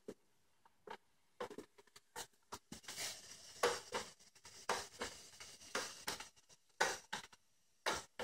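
iRobot Braava mopping robot working its way across a tiled floor: a string of short, irregular clicks and scrapes, roughly two a second.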